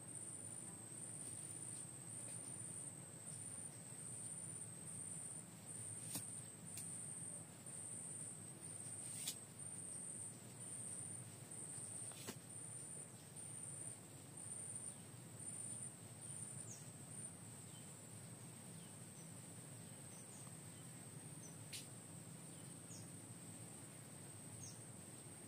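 A steady, high-pitched insect trill over faint outdoor background noise, broken by a few sharp clicks.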